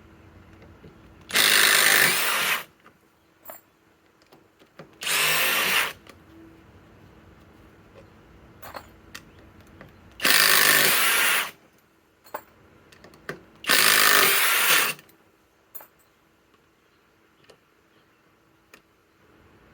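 Kobalt XTR impact driver hammering in four bursts of about a second each, backing out 4-inch Grip-Rite screws, with small clicks and handling noises between the bursts.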